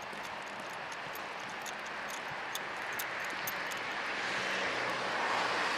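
Steady outdoor noise that swells louder in the second half, with a run of light, quick clicks in the first half.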